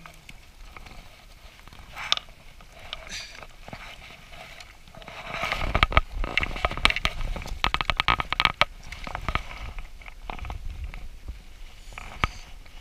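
A hooked trout splashing at the lake surface, then thrashing in a mesh landing net as it is scooped from the water. The splashing and rapid clicking is loudest from about five to ten seconds in.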